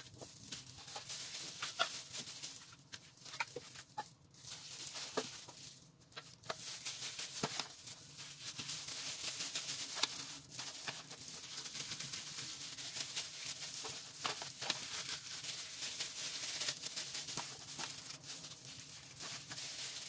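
A hand in a disposable plastic glove handling sticky bread dough, with scattered soft clicks and crinkles over a steady hiss.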